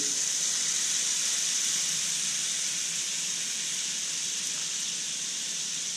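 Lionfish fillets frying in butter in a hot pan: a steady sizzle, while fresh lemon juice is squeezed into the pan.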